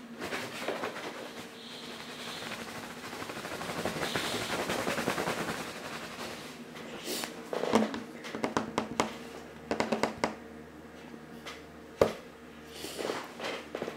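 A person sniffling through the nose: a stretch of noisy nasal breathing over the first few seconds, then a quick run of short sharp sniffs in the middle. A single sharp click about twelve seconds in.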